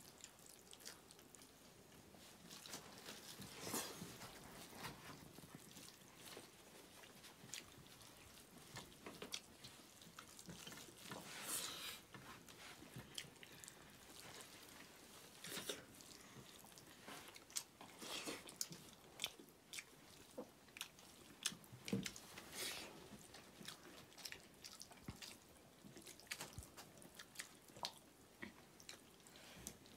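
Quiet eating sounds: people chewing and biting buffalo meat, with scattered soft clicks and crunches as fingers mix food on metal plates.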